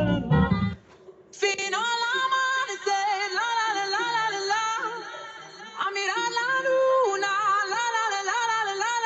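Music played on a JBL Xtreme 2 Bluetooth speaker: a bass-heavy track cuts off under a second in, and after a short break a slowed, wavering sung vocal line starts without any bass.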